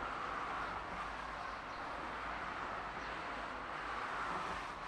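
Road traffic passing: a steady hiss of tyres on the road that swells near the start and again about four seconds in.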